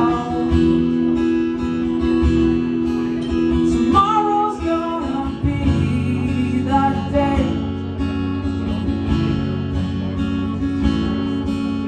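Acoustic guitar strummed and picked through an instrumental passage between sung lines, with chords ringing on and short melodic figures over them.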